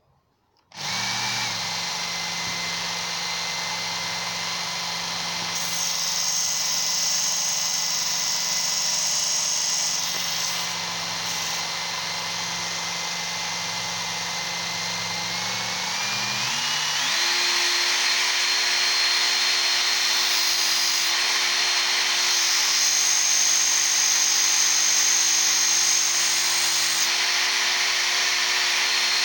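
Work Sharp Ken Onion Edition powered belt sharpener starting up about a second in and running steadily with a motor whine, with a hissing abrasive belt grinding a chisel in two stretches. About two-thirds of the way through, the speed is turned up and the whine climbs in a few steps to a higher pitch.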